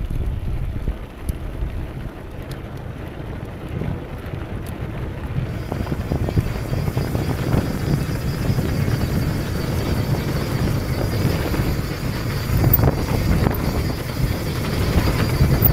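Wind buffeting an action camera's microphone and mountain bike tyres rolling over a dirt trail, a low rumble that grows louder as the bike picks up speed. A few light ticks in the first seconds.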